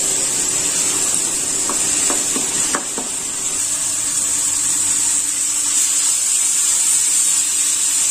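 Chopped tomatoes and masala sizzling in oil in an aluminium kadhai, with a steady high hiss, while a wooden spatula stirs and scrapes through them. A few light knocks of the spatula come about two to three seconds in.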